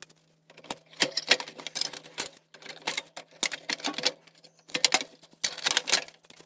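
Side cutters snipping wires off a CRT monitor's chassis, with the wires and plastic parts being handled: a run of sharp, irregular clicks and snaps.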